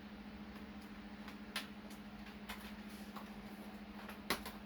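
Handling sounds while a charger is unpacked: two sharp clicks, about a second and a half in and near the end, and a few faint ticks, over a steady low hum.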